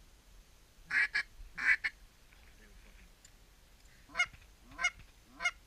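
Goose honks: two pairs of loud two-part honks a second or two in, then three single honks about half a second apart near the end.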